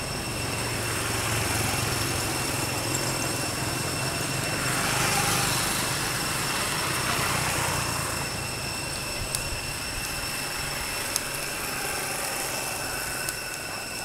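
A motor engine running nearby, its low hum swelling to a peak about halfway through and fading away in the second half, with thin steady high-pitched tones over it throughout.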